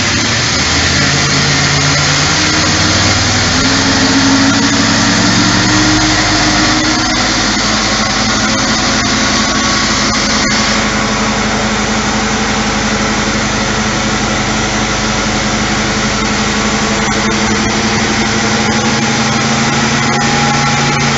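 Holden HG Brougham's stock 308 V8 revved hard during a burnout, the rear tyres spinning on concrete with a dense screech of rubber. The engine note climbs over the first few seconds, then holds steady for the rest of the burnout.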